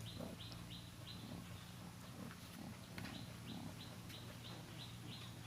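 Quiet ambience with a faint high chirp repeating about three times a second over a low steady hum.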